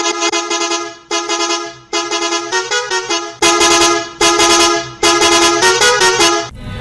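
Edited bus horn playing a short tune in long blasts: two held notes, then a phrase of quick note changes, the pattern sounding twice. About three and a half seconds in it turns louder and harsher.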